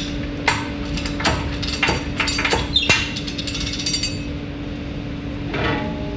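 Metal clanking and ringing knocks as the door clamps of a yarn-steaming autoclave are loosened with an iron bar, with a brief grating sound near the end, all over a steady hum.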